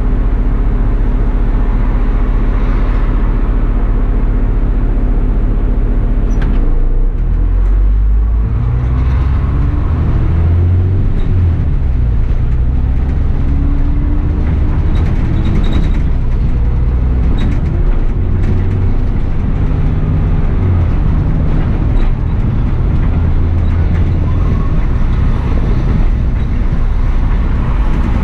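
Bus engine idling steadily, then speeding up as the bus pulls away, its pitch rising and falling again and again through the gear changes.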